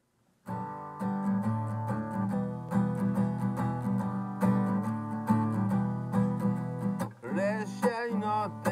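Acoustic guitar strummed in a steady rhythm of chords as the song's intro, starting about half a second in. About seven seconds in, a man's singing voice comes in over the guitar.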